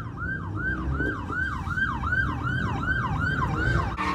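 Police car siren in a fast yelp, its pitch sweeping up and down about three times a second, over a low rumble of car engines.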